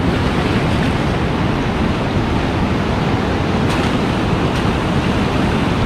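Steady rush of surf washing over the shallows, with wind buffeting the microphone.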